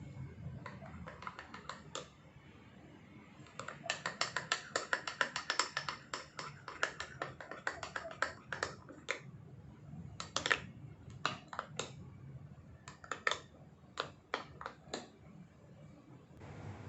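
A metal spoon clicking and tapping against a ceramic mug while stirring the brownie batter. There is a fast run of clicks, about five a second, a few seconds in, then scattered groups of clicks, and a short hiss near the end.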